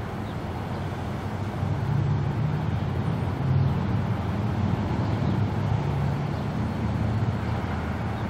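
Low, steady rumble of a diesel commuter train pulling away down the line, swelling slightly for a few seconds in the middle.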